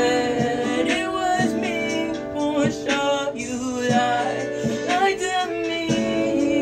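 Music: a song with a voice singing wordless runs over an instrumental backing.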